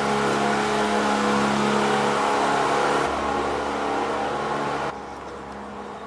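Motor of a small work boat running steadily at an even pitch. About five seconds in it drops away suddenly, leaving only a fainter hum.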